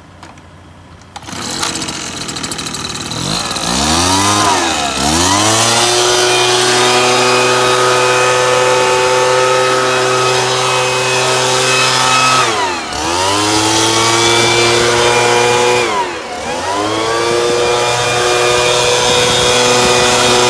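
Hitachi Koki (Tanaka) THB-2510N handheld two-stroke engine blower starting up about a second in, revved up and down a couple of times, then running steadily at high speed, its pitch dipping briefly twice as the throttle is let off and opened again.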